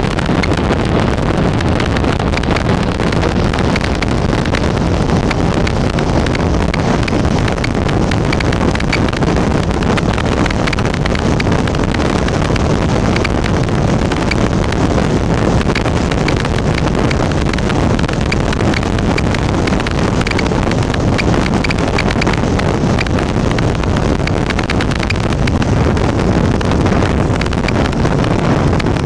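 Steady wind rush buffeting the microphone of a camera on a moving motorcycle, with the motorcycle's engine and tyre noise running underneath.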